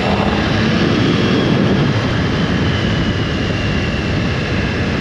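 Triumph Tiger 660's inline three-cylinder engine pulling in gear from low revs at part throttle, its note rising through the first second, over steady wind and road rush.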